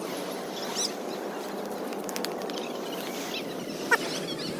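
Steady outdoor rushing noise with short high chirps about a second in and again near the end.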